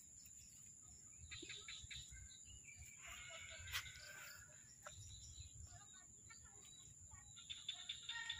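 Faint bird chirping in a few short bursts, over a steady thin high-pitched tone, with a single sharp click a little before halfway.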